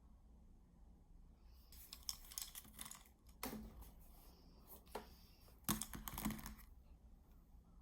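Faint clicking and rattling of small hard objects being handled, then a few sharper knocks, the loudest about two-thirds of the way in.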